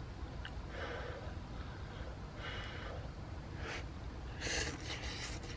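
A man's short, hissing breaths through the mouth, several times, as he reacts to the burn of a very spicy hot pot. A low steady hum runs underneath.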